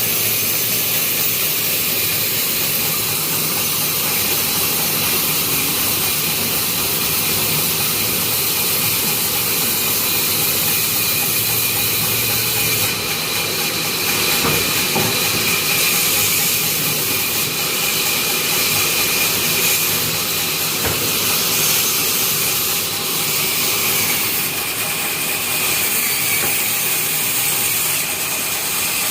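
Sawmill saw running through timber: a steady, loud, high hiss with a machine hum underneath.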